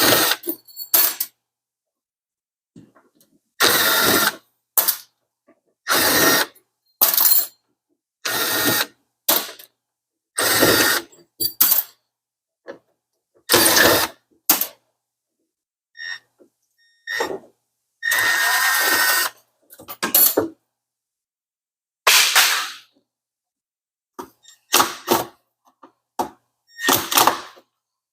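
Power drill driving screws out of a refrigerator's sheet-metal inner liner, running in many short bursts of under a second with pauses between, one longer run about eighteen seconds in.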